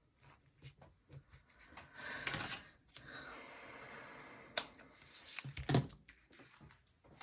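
Hands rustling and pulling a cord as it is tied around a small paper card, then one sharp scissors snip cutting the cord about four and a half seconds in, followed a second later by a thump as something is set down on the cutting mat.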